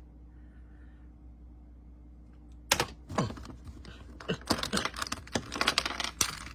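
Quiet for the first two and a half seconds, then a sharp click and a fast, irregular run of plastic clicks and clatters: a Rubik's Cube's layers being twisted rapidly in the hands.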